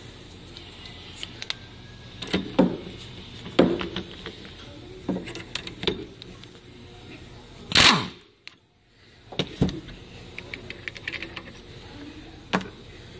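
Metal parts and tools handled on a workbench: scattered light clinks and knocks, with one louder bump about eight seconds in.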